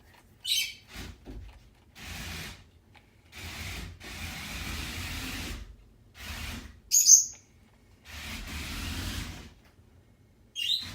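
Sony aibo robot dog making a series of short breathy, rustling noises, broken by brief high chirps about half a second in, near seven seconds (the loudest) and near the end.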